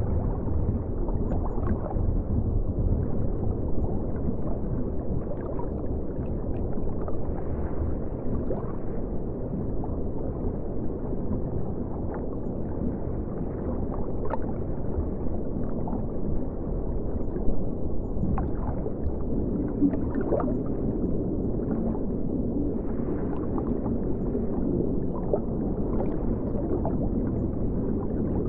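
River water flowing, heard underwater: a steady, muffled low rumble with scattered faint ticks and gurgles.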